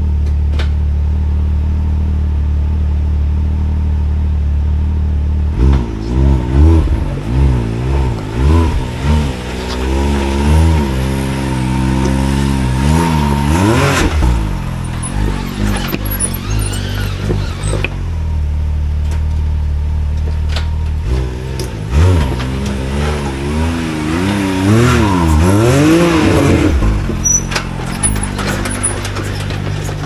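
Can-Am Maverick X3 side-by-side's three-cylinder engine idling, then revved in repeated short throttle blips, settling back to a steady run in the middle and blipped again near the end, as when working a rock ledge climb.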